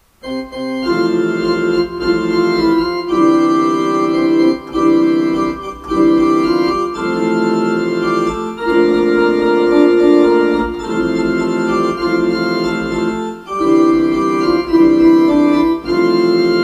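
Instrumental intro music: held chords that change every second or two.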